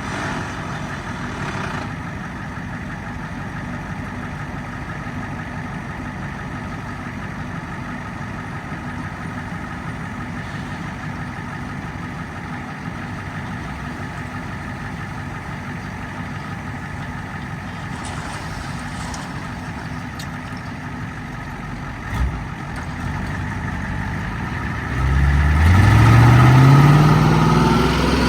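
Kubota M7-172 tractor and pull-type forage harvester running steadily while chopping corn, a steady engine drone with a machinery whine. A single knock comes about 22 seconds in. Near the end the sound grows much louder for a few seconds, and the engine pitch bends up and then down.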